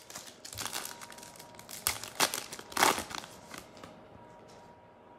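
Trading-card pack wrapper crinkling and tearing as a pack of basketball cards is opened, with a few sharper crackles about two to three seconds in; the rustling dies down after about four seconds.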